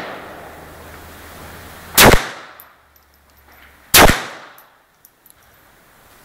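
Two shots from a Browning Buck Mark semi-automatic pistol firing high-velocity .22LR rounds, about two seconds apart, each a sharp crack with a brief ringing tail.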